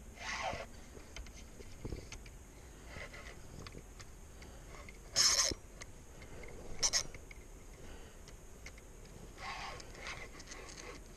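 Spinning fishing reel being cranked and handled on the rod, giving short scraping and rustling noises, with one louder brief rush about five seconds in.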